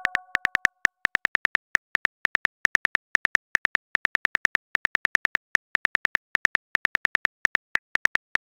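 Simulated phone keyboard typing clicks from a chat-story app: short ticks in a quick, slightly uneven run of about seven a second as a message is typed out. The tail of a message chime fades out under the first second.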